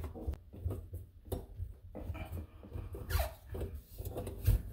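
Plastic slip adapter being pushed and twisted onto a brass sink drain tail piece: light scraping and clicking of plastic on metal, with a short squeak about three seconds in.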